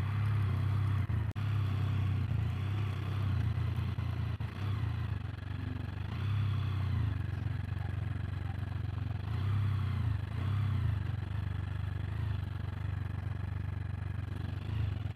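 Can-Am Spyder F3 Limited's three-cylinder engine running steadily while riding, with small rises and falls in engine pitch.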